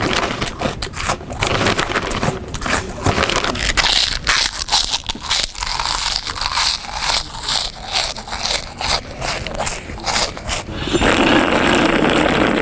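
A person eating loudly and deliberately: irregular crunching, biting and crackling of food, with crinkling of the food wrapping, then a louder, continuous noisy stretch about eleven seconds in.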